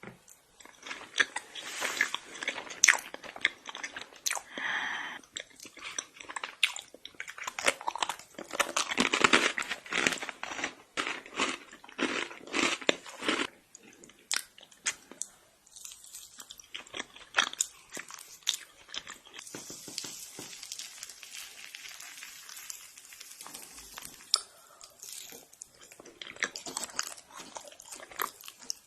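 Close-miked eating: a person biting and chewing food, with crunchy, crackly mouth sounds in dense clusters and a short lull about halfway through.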